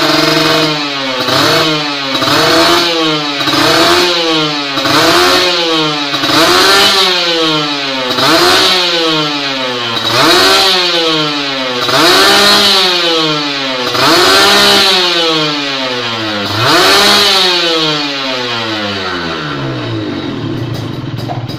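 Kawasaki Ninja 150 Super Kips two-stroke single blipped again and again through an aftermarket expansion-chamber exhaust, each rev climbing and dropping back, roughly every one and a half to two seconds about ten times, then settling to idle near the end.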